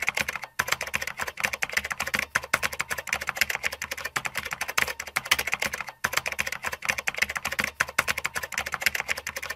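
Typing sound effect: a rapid run of keystroke clicks, several a second, with a brief break about six seconds in.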